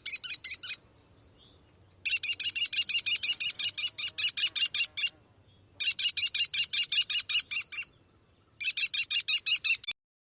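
A songbird singing a series of fast trills of repeated high notes, about six notes a second, each trill lasting two to three seconds with short pauses between: one ending just after the start, then three more.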